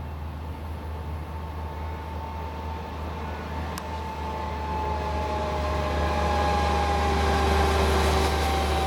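A distant vehicle passing, its noise growing steadily louder through the second half, with a whine that slides slowly down in pitch over a steady low rumble.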